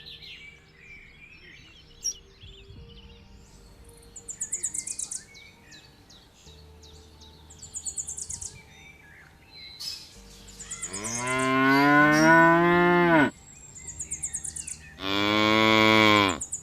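Cattle mooing: a long, loud moo about two-thirds of the way in that falls in pitch as it goes, then a shorter moo near the end. High, pulsed chirping trills sound quietly in the background throughout.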